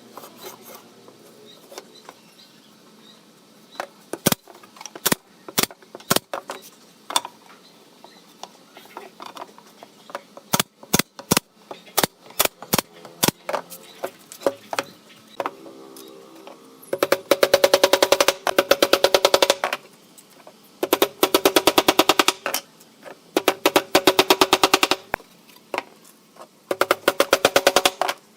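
Scattered sharp knocks, then four bursts of rapid, even hammering from a power tool, each lasting two to three seconds.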